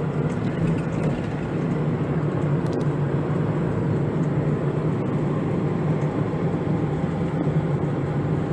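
Steady drone of a van's engine with tyre and road noise, heard from inside the cab while driving.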